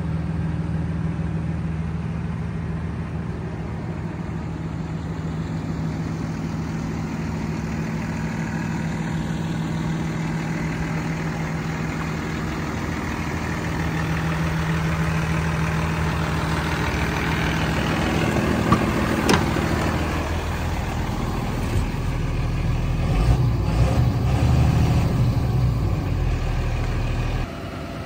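Cummins 6.7-litre turbo diesel of a 2011 Ford F750 idling steadily, with a couple of sharp clicks about two-thirds of the way through; the sound drops abruptly to a quieter level near the end.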